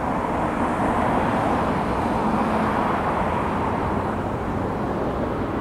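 Steady rumble of distant vehicle noise, swelling a little over the first couple of seconds and then easing off.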